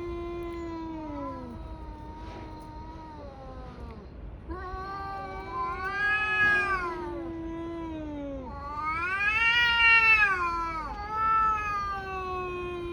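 Tabby cats yowling in a fight standoff: long, drawn-out caterwauls that rise and fall in pitch, one after another, the loudest about ten seconds in. These are the threat yowls of two cats squaring off.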